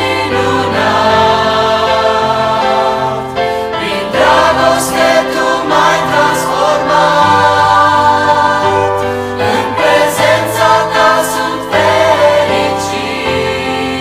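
Mixed choir of young men's and women's voices singing a worship song in Romanian in parts, holding long chords, with a piano accompanying.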